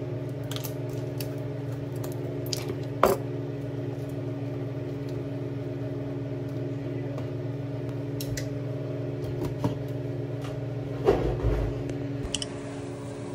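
Steady hum of a kitchen appliance motor running. Over it come light clinks and knocks of cooking utensils against a soup pot: one sharper knock about three seconds in, and a small clatter near the end.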